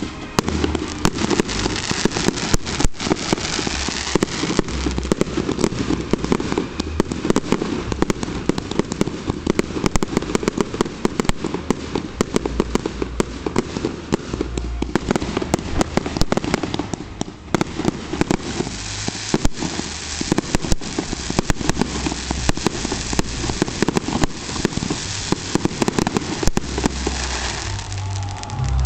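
Fireworks display: a dense, continuous barrage of bangs and crackling from bursting shells.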